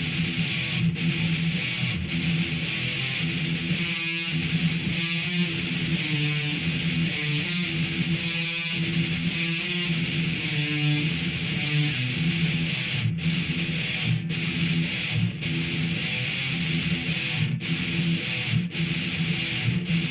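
Multitracked distorted electric guitars playing a heavy metal riff, with rhythm, lead and harmony parts layered together. In the second half the riff breaks off for several short stops.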